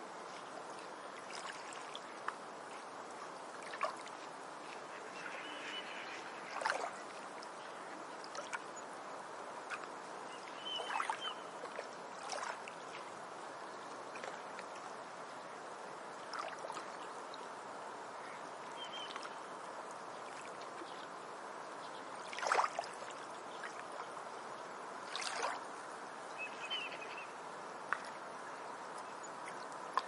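Beach ambience: a steady wash of water at the shoreline, with small waves lapping and splashing every few seconds, the loudest splash about three quarters of the way through.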